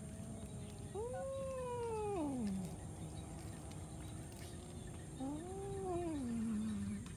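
Cats meowing: two long, drawn-out calls, each rising and then sliding down in pitch, about a second in and again about five seconds in.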